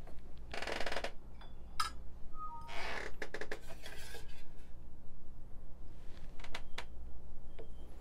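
Clinks and knocks of a small scale and glassware being handled and set down on an espresso machine's metal drip tray: a few scattered sharp taps, two short rustling scrapes, and a brief falling two-note beep a couple of seconds in.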